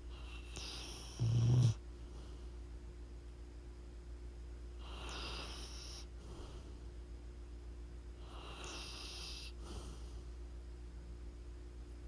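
A sleeping dog snoring: three slow snoring breaths about four seconds apart. The first ends in a short, much louder deep snort about a second in.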